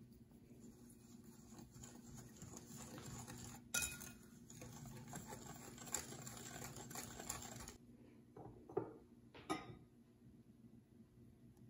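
A wire whisk stirring dry sugar and cornstarch in a glass bowl: a soft, scratchy swishing with sharp clinks of metal against glass about four and six seconds in. It stops about eight seconds in, and a few light taps follow.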